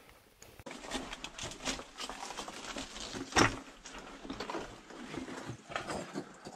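Footsteps on loose rock along a mine tunnel floor, an uneven run of knocks and scuffs starting abruptly just under a second in, with one much louder knock a little past halfway.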